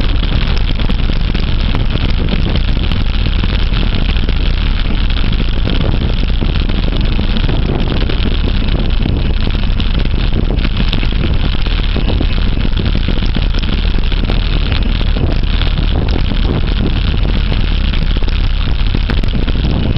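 Steady wind rush and low rumble on the microphone of a camera riding on a moving mountain bike.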